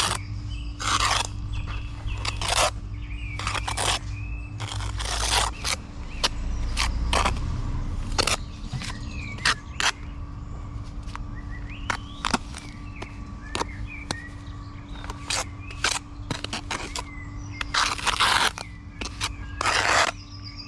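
Bricklaying work: a trowel scraping and knocking on mortar and bricks in many short strokes, with several longer scrapes, while birds chirp in the background.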